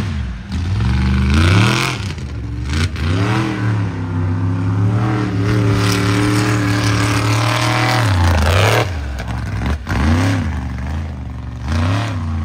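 Mega truck's engine revving hard in surges, pitch climbing and falling several times, then held high and steady for about four seconds before dropping off and blipping twice more near the end.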